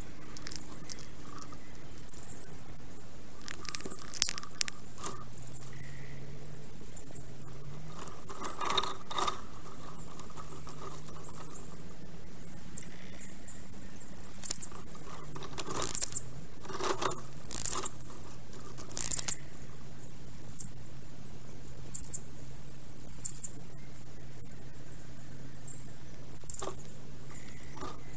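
Very high-pitched chirps of small forest birds. They are scattered and faint at first; about halfway through they become loud short bursts about every one and a half seconds. A faint steady low hum runs underneath.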